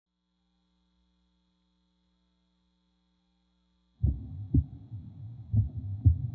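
Near silence with a faint hum, then about four seconds in a deep heartbeat-like double thump begins, repeating about every second and a half over a low rumble: the opening of the contemporary solo's music track.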